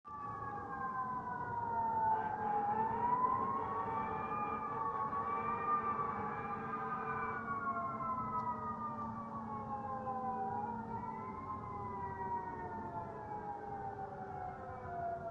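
Fire siren sounding a slow wail. Its pitch falls gradually over several seconds, climbs back up about two seconds in and again about ten seconds in, then slides steadily down toward the end.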